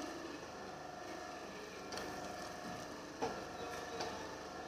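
A silicone spatula stirring thick gravy in a kadhai, with a few soft scrapes and taps against the pan about two, three and four seconds in, over a faint steady hum.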